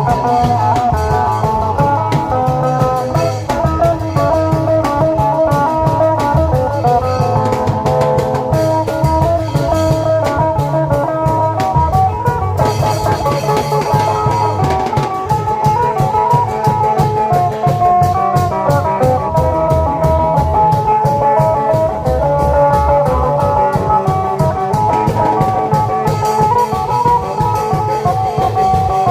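Isan klong yao (long drum) band playing a lively procession tune: fast, steady drumming with regular cymbal ticks under a plucked string melody.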